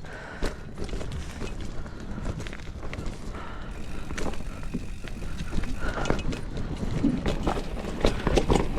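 Mountain bike riding a rough forest singletrack: tyres running over dirt and roots, with frequent rattles and knocks from the bike that get busier and louder over the second half.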